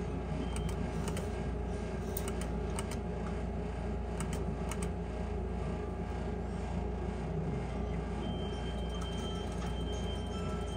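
Electronic skill game machine sounds over a steady low hum: scattered faint high clicks as the reels spin, and a thin steady high tone that begins about eight seconds in.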